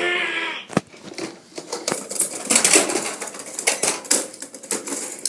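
Hard plastic toys clattering and knocking together in irregular clicks, busiest in the middle. A held high-pitched sound ends about half a second in.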